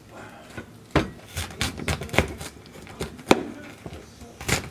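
Chef's knife chopping napa cabbage on a cutting board: irregular sharp knocks of the blade striking the board, loudest about a second in and just after three seconds.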